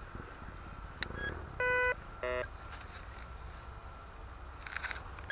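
Metal detector sounding two short target tones, a higher one about a second and a half in and a lower, buzzier one just after, with a faint short chirp before them.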